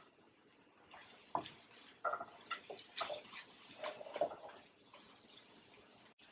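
Wooden spatula stirring and scraping snake gourd and egg in a wok: faint, irregular soft scrapes and moist clicks, starting about a second in.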